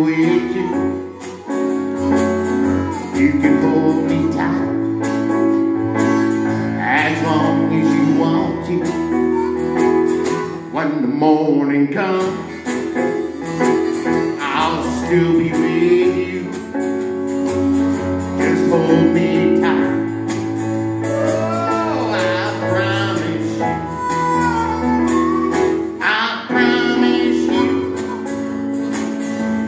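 Live harmonica solo with bending notes, played over a strummed acoustic guitar and keyboard.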